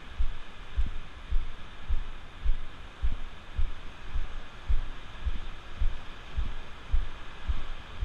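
Walker's footsteps on firm wet sand, picked up through a body-worn camera as low, dull thumps about twice a second in a steady walking rhythm, over a faint steady hiss of surf.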